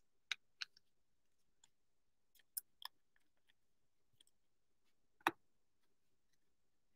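Faint, sparse clicks of Select basketball trading cards being handled and flipped through by hand: a few light clicks in the first seconds, two more a little later, and one sharper click about five seconds in.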